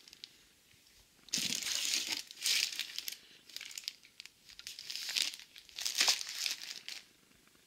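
Clear plastic wrapping crinkling around packs of firecrackers as they are handled, in about four separate rustling bursts with short quiet gaps between.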